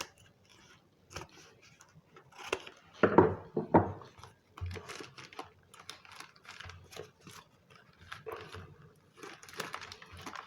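Packing materials being handled by hand: a run of short crinkles, rustles and light taps, loudest about three seconds in.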